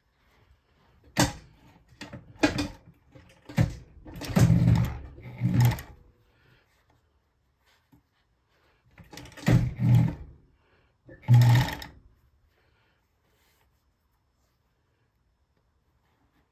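Old Bonis Never Stop A-model fur sewing machine stitching beaver leather, run in short bursts of half a second to a second, about seven times over the first twelve seconds.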